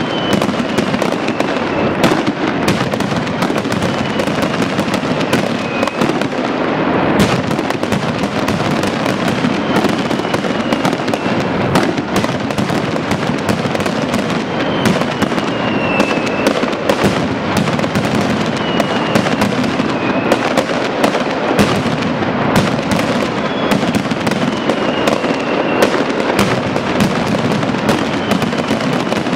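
Mascletà: a dense, continuous barrage of masclets and firecrackers bursting along strung lines, with short falling whistles cutting through it every few seconds.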